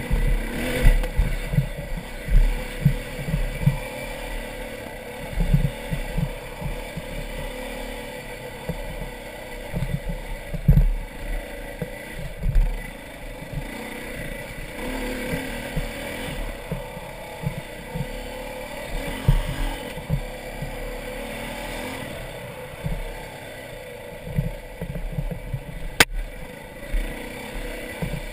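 Dirt bike engine running as the motorcycle climbs a rocky trail, with irregular low thumps from bumps and wind buffeting on the helmet-mounted camera. A single sharp click comes near the end.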